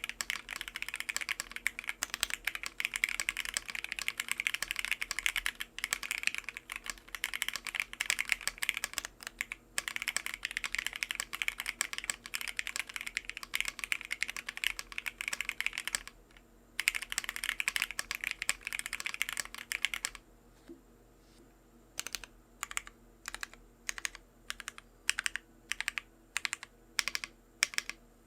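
Stock Akko Jelly Black linear switches in a Bakeneko keyboard with an FR4 plate and Black Lotus clone keycaps, typed on quickly in a dense stream of clicks, with a short break about 16 s in. About 20 s in the fast typing stops and gives way to slower single keystrokes, roughly two a second.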